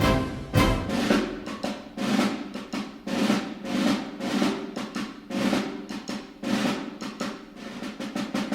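Orchestral music with a rolling snare drum and repeated percussion hits.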